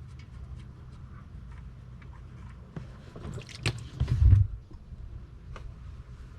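Engine oil draining from a car's oil pan into a drain pan: small drips and ticks, then a louder wet, squishy splashing burst from about three to four and a half seconds in.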